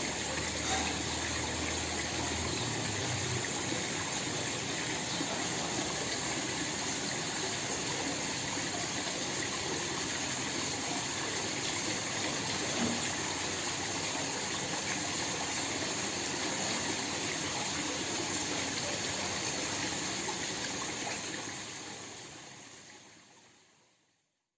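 Small waterfall with a steady rush and splash of falling water, fading out near the end.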